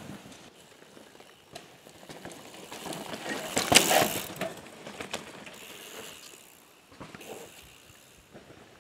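Commencal mountain bike riding down a dirt forest trail: tyres rushing over the dirt, with scattered clicks and knocks from the bike and the rear hub clicking. Loudest about four seconds in, when the wheel passes close, then fading.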